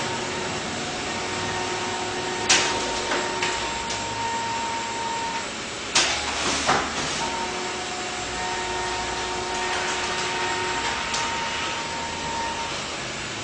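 Xerox DocuColor 250 colour printer running a print job: a steady mechanical whir with a whine that comes and goes, broken by a few sharp clacks of the mechanism as sheets are fed out to the output tray.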